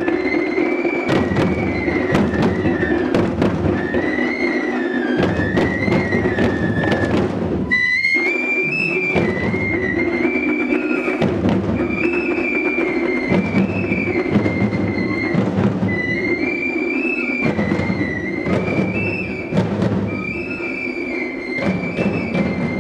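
Traditional Sri Lankan drumming on drums beaten by hand, with a wind instrument playing a stepping, repeating melody over it. Both break off briefly about eight seconds in, then carry on.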